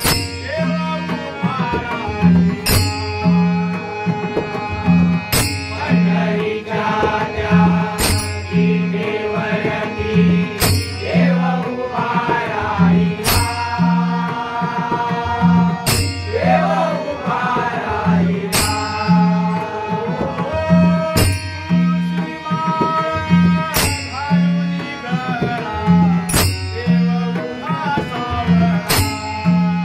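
Devotional bhajan music: held melodic tones, a singing voice gliding between notes, and a hand drum beating steadily. A bright metallic clash lands about every two and a half seconds.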